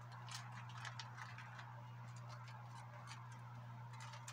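Faint, irregular light ticks and clicks over a steady low hum.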